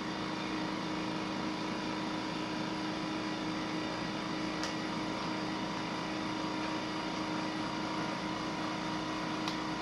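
Vacuum sealer's pump running steadily as it draws the air out of a bag of mashed-potato mix: an even motor hum with a few steady tones, unchanging throughout.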